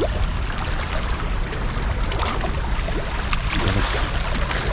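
Steady wash of sea water against shoreline rocks, with a low rumble underneath and a few small clicks.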